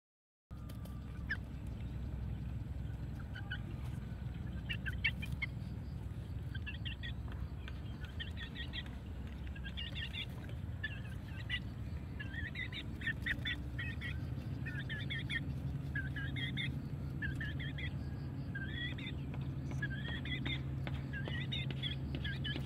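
Young chicken peeping over and over in short, high chirps, over a low, steady background hum.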